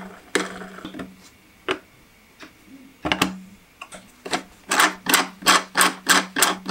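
3D-printed PLA plastic gears and stand parts clicking, knocking and rubbing as they are handled and fitted together, with a quick run of about four clicks a second near the end. A low steady hum lies underneath.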